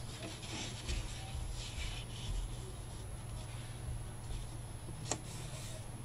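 Hands sliding and rubbing over a sheet of patterned scrapbook paper laid on a cardboard box panel: soft paper rustles, with one short tap about five seconds in.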